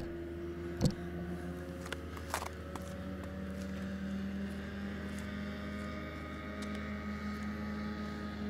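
Steady drone of a distant engine, its pitch shifting slightly, with a couple of sharp clicks about one and two and a half seconds in.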